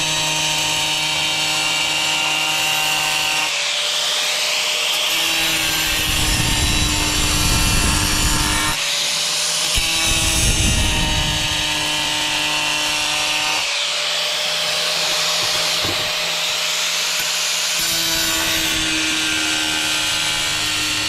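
Angle grinder running steadily while its blade grinds into a tile, cutting gently under the grinder's own weight. The grinding comes in repeated passes, the motor's pitch shifting each time, about every four to five seconds.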